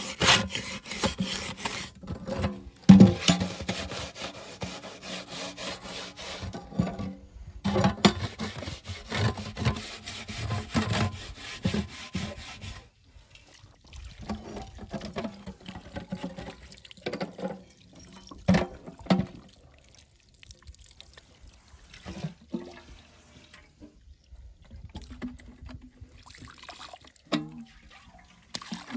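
A soot-blackened metal kettle being scrubbed by hand with sand: a steady, gritty scraping for about the first half. It then turns quieter and more broken, with a few knocks, as water is poured over the kettle to rinse it.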